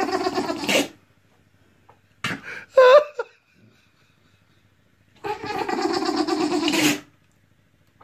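A bulldog-type dog making strange vocal noises: a short burst about two seconds in, a brief rising yelp near three seconds, then a rough, pulsing call lasting nearly two seconds near the end.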